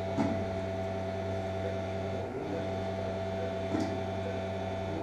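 Steady mechanical hum of operating-room equipment, with a couple of faint clicks, one about a quarter second in and one near the end.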